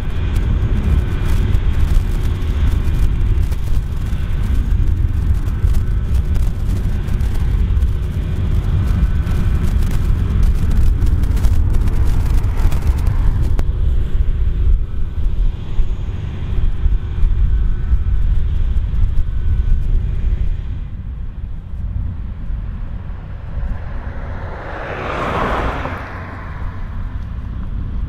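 Claas Lexion 8900 combine harvester running under load while cutting canola: a loud, steady low rumble with a faint steady whine above it. About three-quarters of the way through it drops to a quieter combine sound, and a brief rising and falling whoosh follows a few seconds later.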